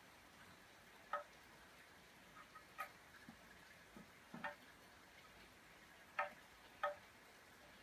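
Pencil knocking and poking into the holes of a wooden stool seat: five sharp taps, each with a short ringing tone, spaced irregularly, the loudest two near the end, with a few soft low thuds between.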